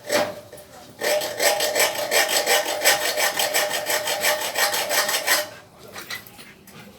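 Hand saw cutting through wood in fast, even back-and-forth strokes, about five or six a second, starting about a second in and stopping after about four seconds. A brief knock comes at the very start.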